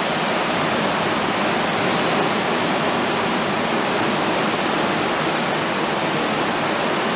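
Steady hiss and wash of heavy, storm-driven surf breaking along the beach, with waves stirred up by a hurricane passing offshore.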